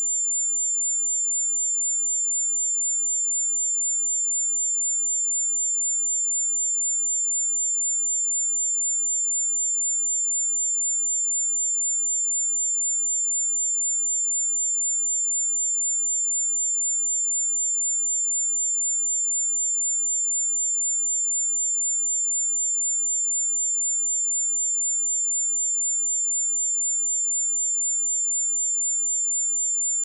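A steady, high-pitched 7198 Hz sine-wave test tone: one pure tone held unchanged at constant loudness.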